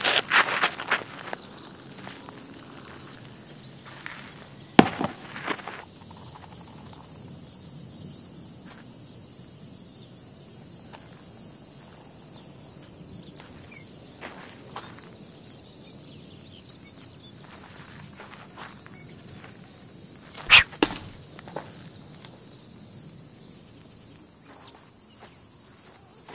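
Steady high-pitched drone of insects in the summer heat. A few sharp knocks stand out over it: several at the very start, one about five seconds in, and the loudest, two in quick succession, about twenty seconds in.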